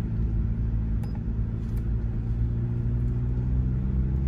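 V8 engine idling, heard from inside the cab, a steady low rumble whose pitch rises slightly near the end, with a couple of faint clicks.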